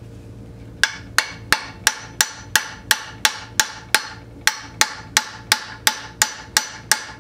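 Repeated metal-on-metal blows with a piece of brass, driving the back gear shaft out of a 10-inch Logan lathe headstock. The blows come about three a second, each with a short metallic ring. They start about a second in, with a brief pause about four seconds in.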